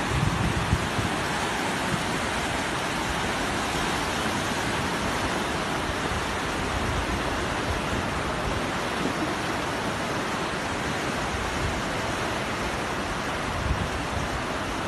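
Fast-flowing floodwater rushing past, a steady, unbroken noise of churning water.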